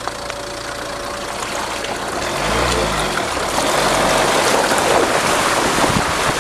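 Ford Tourneo Connect's front tyre driving through shallow water on a dirt track, the water splashing and spraying off the wheel, getting louder from about two seconds in. A brief low engine rumble comes in about halfway through.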